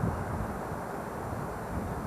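Golf cart running, giving a steady low rumble.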